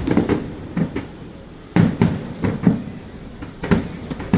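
Fireworks bursting: a series of sharp bangs and pops, the loudest about two seconds in, with several smaller reports following.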